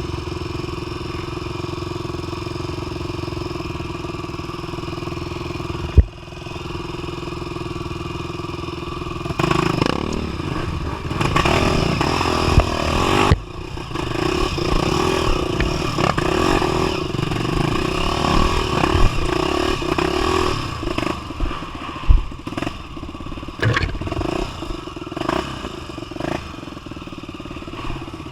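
A 250 cc single-cylinder trail motorcycle engine running under way off-road, fairly steady at first and then revving up and down from about nine seconds in. Several sharp knocks and clatter from the bike over rough ground.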